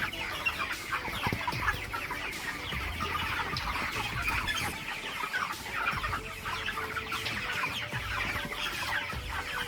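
A flock of chickens clucking and cheeping continuously, many short calls overlapping.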